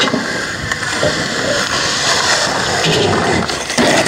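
Skateboard wheels rolling over concrete, a steady rough rumble, with a sharp knock of the board near the end.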